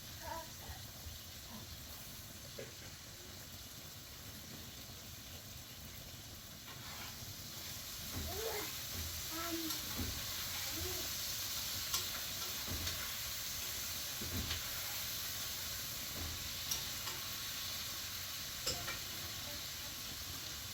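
A steady hiss that grows louder about seven seconds in, with a few light clicks and faint voices over it.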